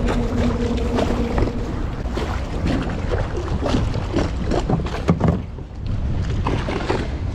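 Wind rumbling on the microphone, with scattered clicks and knocks through the middle and a steady low hum that stops about a second and a half in.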